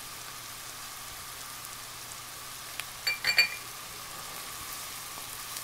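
Diced vegetables sizzling gently in melted butter in a skillet as flour is added and stirred in for a roux. A quick run of metallic clinks comes about three seconds in.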